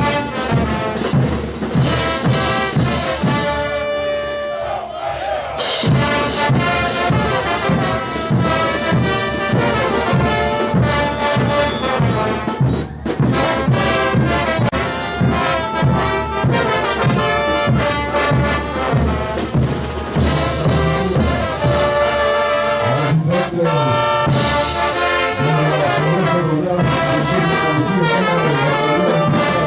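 Marching brass band playing a dance tune: trumpets, trombones and sousaphones over a steady beat of bass drums, snare drums and cymbals. The drums drop out briefly about four seconds in.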